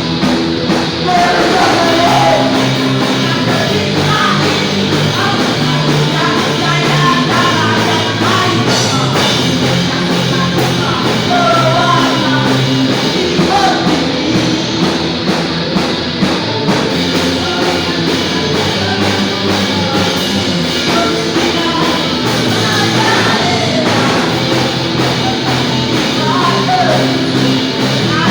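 Punk rock song played by a band, with a sung vocal line over steady, dense instruments at an even loudness.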